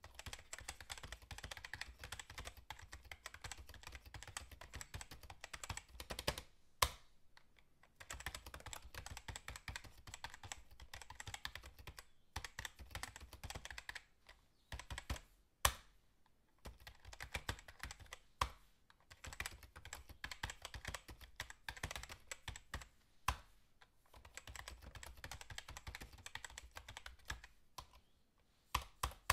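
Fast typing on a computer keyboard: rapid runs of key clicks lasting several seconds, broken by short pauses, with an occasional single harder keystroke standing out, sharpest about seven seconds in and again around sixteen seconds.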